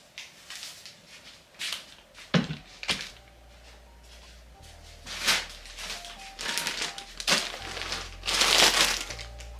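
Plastic food bags crinkling and items being set down on a countertop: a few knocks and short rustles, with a longer, louder crinkle near the end. Soft background music plays underneath.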